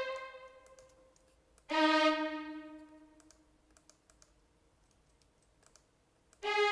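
Sampled violin playback from Sibelius notation software: a rising arpeggio rings out, then a single note sounds about two seconds in and fades away. Soft computer keyboard and mouse clicks follow, and near the end the violin arpeggio begins playing again.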